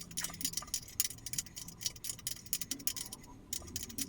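Rapid, irregular metallic ticking, several clicks a second, from hand work on the BMW S1000R's drive chain and its adjusters.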